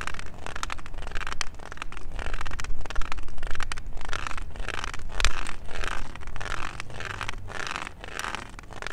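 White cane tip sweeping back and forth across an asphalt street: a gritty scraping over the rough stones, with sharp clicks, repeating about one and a half times a second.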